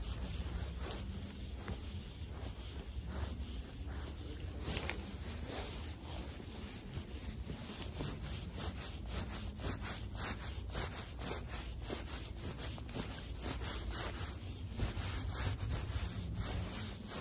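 Fly line being stripped in by hand during a retrieve: short, irregular rasping pulls of line through the fingers and rod guides, several a second, over a low steady rumble.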